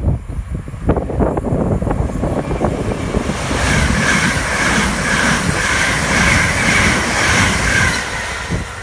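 GWR Class 387 electric multiple unit passing through the station at speed: a rumble builds from about a second in, then a loud rushing hiss with a high whine runs for several seconds as the carriages go by, fading near the end.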